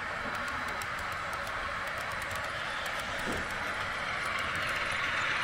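HO-scale model train running on the layout's track: a steady running sound with faint, rapid clicking, growing louder toward the end as it draws nearer.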